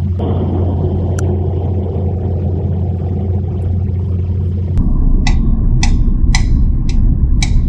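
Steady low machine hum from a CNC bridge saw as its head is jogged slowly in X. About five seconds in, it gives way to a louder, rougher rumble with sharp ticks about twice a second.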